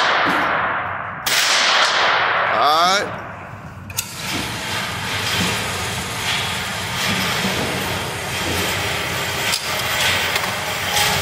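Rifle shot about a second in, echoing hard off the concrete walls of the indoor range, over the fading echo of the shot just before. Then an electric target carrier starts up with a brief rising whine and a click and runs steadily, bringing the paper target back up the lane.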